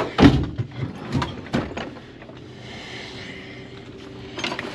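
Metal tool box drawer being worked: several knocks and clunks in the first two seconds, then a quieter steady sliding rasp, and a few clicks near the end. The drawer had been sticking.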